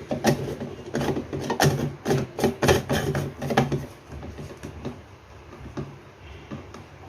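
Mixer grinder jar being closed and its lid twisted tight by hand: a quick run of clicks and knocks with rubbing for about four seconds, then fainter handling.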